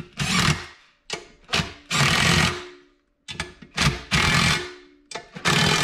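Impact wrench running the nuts down on a ball joint's mounting bolts in a series of short bursts, about seven in all, each cutting in abruptly and winding down, moving back and forth between the nuts.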